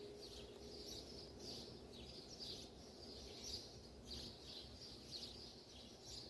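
Faint high chirps of small birds, repeating about twice a second, over a low steady hum that fades out about a second in.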